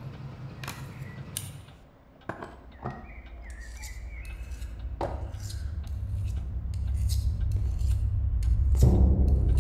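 Steel straight razor drawn across a whetstone in a series of quick scraping strokes, under a low rumble that swells toward the end.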